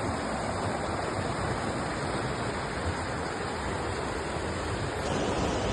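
Steady rushing of a waterfall, a little louder from about five seconds in.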